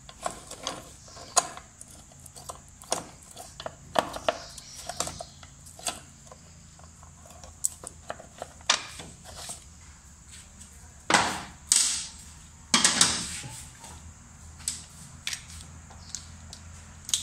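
Hand wrench working the bolts of a motorcycle engine: scattered metal clicks and clinks, with a few longer, louder ratcheting and scraping stretches about two-thirds of the way through.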